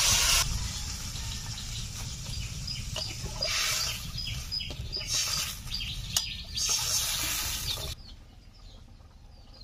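Water poured into a pan of hot fried spice paste with potatoes hisses loudly at first, then the pan sizzles in bursts over a low rumble, with birds chirping in the background. About two seconds before the end it drops much quieter.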